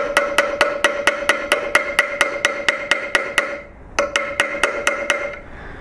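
Small ball-peen hammer giving light, rapid taps, about seven a second, on a roll-pin tool, driving the tiny roll pin that holds the gas tube into an AR-15's gas block. Each tap leaves a steady metallic ring. The tapping breaks off briefly about three and a half seconds in, then resumes.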